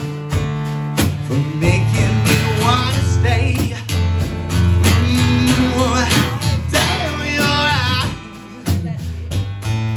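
Live acoustic guitar strummed with a man singing and a snare drum keeping a steady beat. The singing comes in phrases of a couple of seconds between guitar passages.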